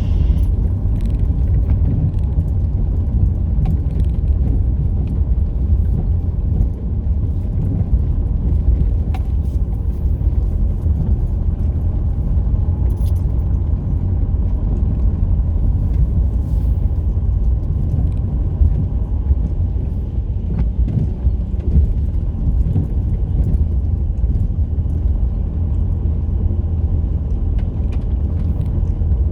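Jeep Liberty 2.8 CRD's four-cylinder turbodiesel driving off road: a steady low rumble of engine and drivetrain, with scattered small clicks and rattles.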